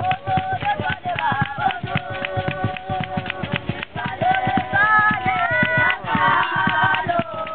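Live group singing by children over a large drum beaten with a wooden stick in a fast, steady rhythm, with hand claps.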